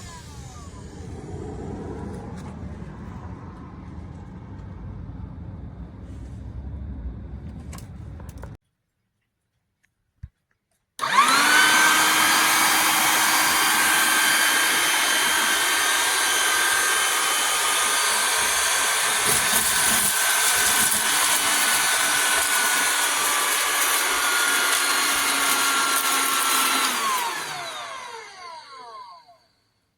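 TengXcel cordless handheld vacuum switched on about 11 seconds in: its motor spins up to a steady high whine over loud rushing air, runs for about 16 seconds, then is switched off and winds down, its pitch falling. Before that there is a low rumble, then a short silence broken by a single click.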